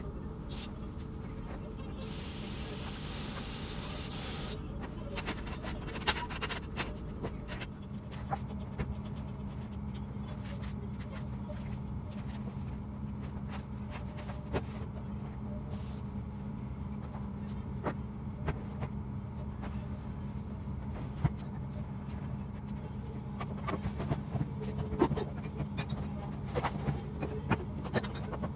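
Kitchen cleaning sounds: light clicks and knocks of things being handled, over a steady low hum, with a hiss lasting about two seconds near the start.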